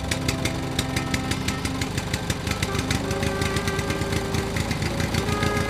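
A fast, steady chugging like a small engine running, over background music with a melody.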